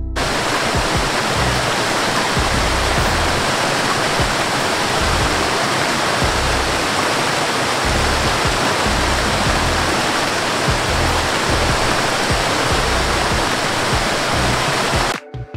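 Waterfall cascading over rocks: a steady rush of falling water that starts abruptly and cuts off suddenly near the end, with music faintly beneath.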